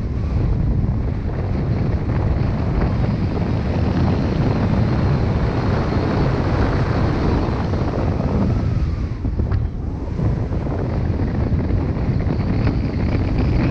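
Wind buffeting the microphone of a body-mounted camera on a fast descent of a ski slope, with the hiss and scrape of sliding over packed, chopped-up snow.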